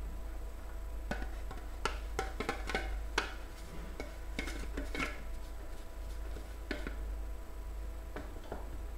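Scattered clinks and knocks of kitchen utensils and pots, clustered in the first five seconds or so and sparser after, over a steady low hum.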